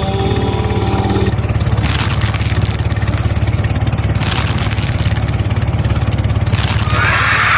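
A tractor engine running steadily with a fast, even chug. Music tones fade out about a second in, and a higher whirring comes in near the end.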